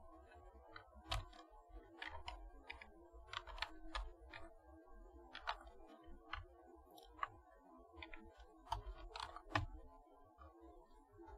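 Quiet typing on a computer keyboard: about fifteen separate, irregularly spaced key clicks.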